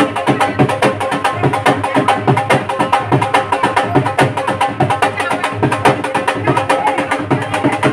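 Dhol drum beaten in a fast, even dance rhythm, with a steady held tone sounding behind the drumming.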